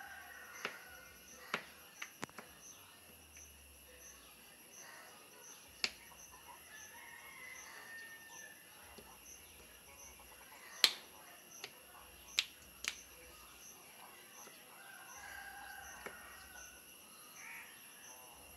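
Scattered sharp knocks of a knife striking a cutting board, about ten in all at uneven gaps, the loudest a little past the middle. Under them runs a steady high-pitched drone, with a few faint calls.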